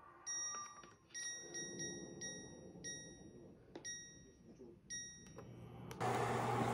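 Induction cooktop's touch controls beeping: a run of short, high electronic beeps as the control panel is pressed to set the heat. Near the end a steady, louder noise with a low hum sets in.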